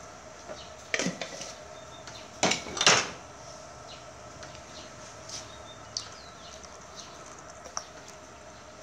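A few sharp clatters and knocks of kitchenware being handled, the loudest pair about two and a half to three seconds in, with smaller taps later, over a steady background hum.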